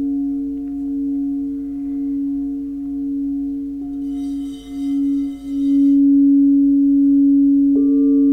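Singing bowls: one bowl sustains a steady low hum with a slowly pulsing overtone. About halfway through, a shimmer of high ringing sounds for a couple of seconds. Near the end, a second, higher bowl is struck and rings on over the first.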